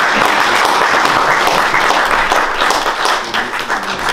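Audience applauding: a steady round of clapping that begins to thin out near the end.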